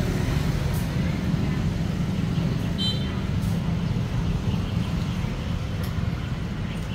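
Steady low rumble of road traffic, with vehicle engines running. There is a short high-pitched tone about three seconds in.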